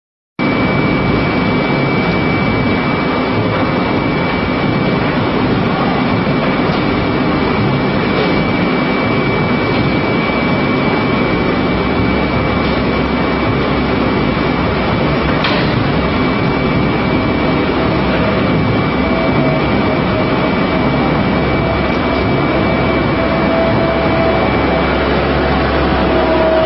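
Heavy rendering-plant machinery running: a loud, even roar with a thin high whine held almost throughout and a lower hum that comes in over the last several seconds.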